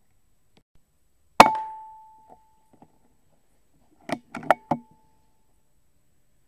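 An air rifle shot about a second and a half in: a single sharp crack with a metallic ring that dies away over about a second. About three seconds later comes a quick run of about five metallic clicks and clacks from the rifle's action, one ringing the same way.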